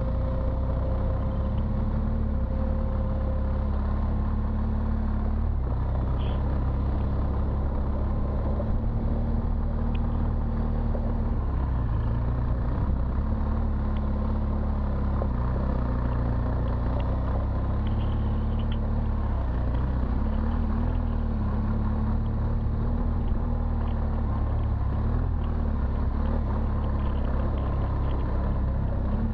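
BMW R1200 GS Adventure's boxer-twin engine running under way on a dirt trail, its pitch rising and falling a little with the throttle over a steady low rumble.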